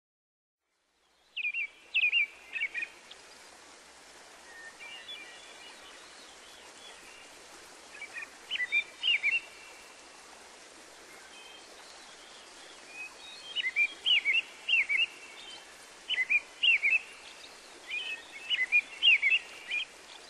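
Forest ambience: songbirds calling in short groups of quick, sharp chirps, over a steady background hiss.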